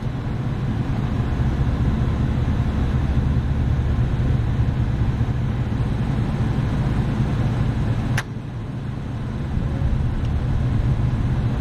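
Motor inside an AAON rooftop HVAC unit running with a steady low rumble. About eight seconds in there is a sharp click, like a relay or contactor, and the rumble drops for a moment and then builds back up.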